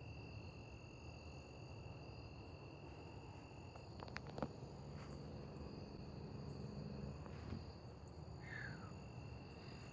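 Evening insects, crickets, trilling steadily at several high pitches in a field at dusk. A few sharp clicks come about four seconds in, and a short falling chirp near the end.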